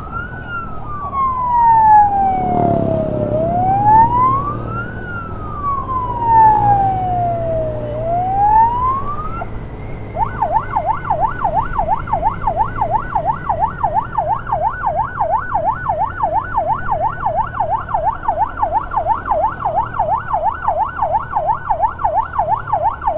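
Electronic emergency siren sounding a slow wail that rises and falls about every four and a half seconds, then switching about ten seconds in to a fast yelp of about four sweeps a second. Under it is the low hum of the motorcycle's engine.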